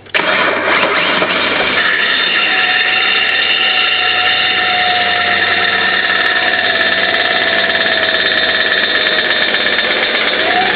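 Holden VS Commodore making a loud noise on starting: it comes on suddenly with the start and holds steady, a loud rushing noise with a few steady whining tones over it.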